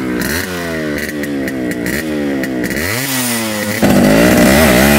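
Yamaha RX100's 100cc two-stroke single-cylinder engine revving in repeated throttle blips, the pitch rising and falling. About four seconds in it gets suddenly louder as the bike is ridden close by.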